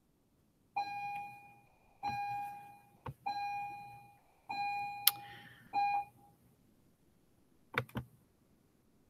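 An electronic chime sounds five times at the same pitch, about once a second, each note fading away. A few sharp clicks fall among the chimes, and two quick clicks come near the end.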